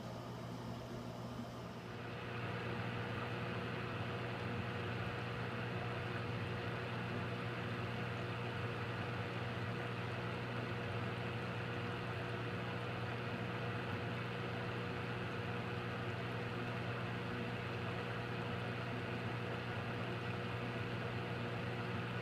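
Steady electrical hum and water rush of running aquarium equipment, getting a little louder about two seconds in and then holding level.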